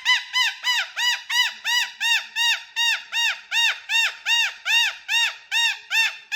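Moluccan cockatoo making a rapid run of squeaky-toy-like squeaks, about three a second, each one rising and then falling in pitch.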